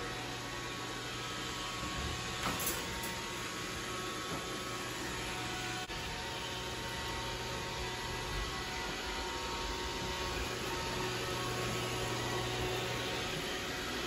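iRobot Roomba robot vacuum running, a steady hum of its motor and brushes with a few faint steady tones in it, and a couple of brief clicks about two and a half seconds in.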